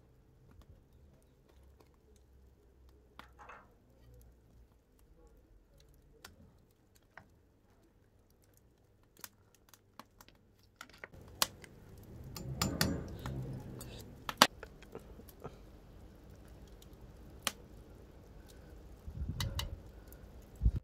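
Lamb broth at a rolling boil in a large metal stock pot, with scattered sharp clinks of a slotted metal skimmer against the pot while the scum is skimmed off. The bubbling and clinking get louder and busier from about eleven seconds in.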